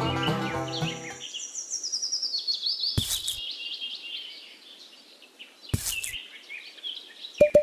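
Birds chirping and twittering continuously, with music fading out in the first second. Two brief knocks come about three and six seconds in, and near the end a fast, even run of short beeping tones begins.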